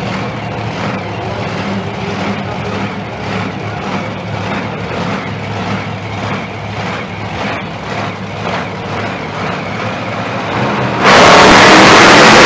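Monster truck engines running with a steady, throbbing drone. About eleven seconds in, one truck's engine is suddenly revved hard to full throttle, very loud, as it pulls away.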